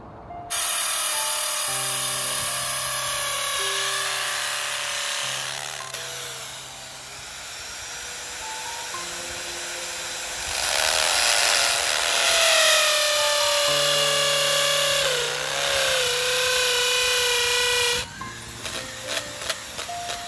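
Corded electric drill with a masonry bit boring into a concrete curb: a loud grinding run with a motor whine that slides and wobbles in pitch. It stops abruptly near the end, leaving a few short clicks.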